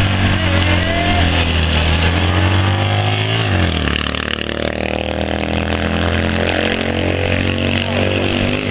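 Citroën 2CV air-cooled flat-twin engines running hard as the cars launch off a drag-race start. About three and a half seconds in, a car passes close by with a sharp drop in pitch, and the engine note then carries on as the cars head down the track.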